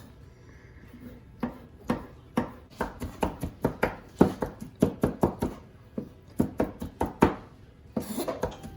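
Knife chopping olives on a cutting board: a run of quick, uneven strikes, a few a second, starting about a second and a half in and stopping near seven seconds.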